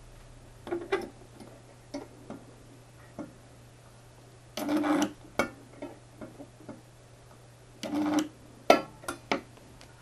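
Homemade spot welder built from a microwave-oven transformer firing two short welds, each about half a second, on a thin stainless steel strip, about four and a half and eight seconds in. Sharp metallic clicks and taps come between them as the strip and pliers are handled, the loudest just after the second weld, over a steady low hum.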